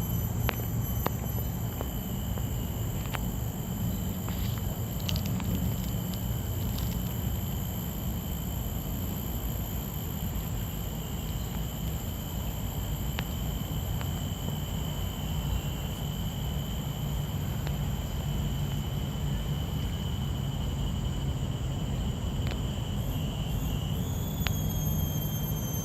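A steady high-pitched whine of several thin tones held throughout, wavering briefly near the end, over a constant low rumble.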